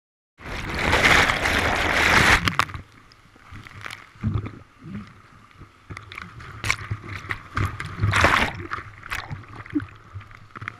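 Whitewater at the foot of a waterfall rushing and splashing right at a kayak-mounted camera. A loud rush starts abruptly and lasts about two seconds, then gives way to quieter churning with sharp splashes, the strongest about eight seconds in.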